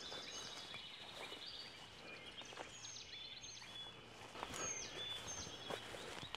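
Several songbirds singing with short high chirps, whistles and trills, over footsteps swishing through leafy undergrowth.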